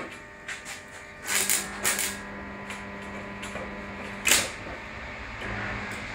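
A few short crackles and taps, three in all, as a stick-welding electrode is scratched and struck against the steel workpiece, with a faint steady hum underneath. The rod is worn down and spent.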